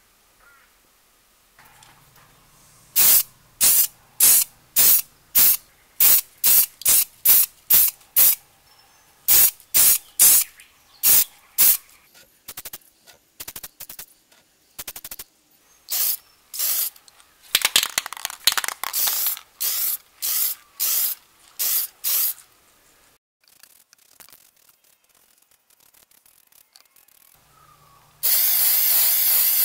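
Aerosol spray-paint can hissing out in many short bursts, about two a second, then one longer steady spray of about two seconds near the end.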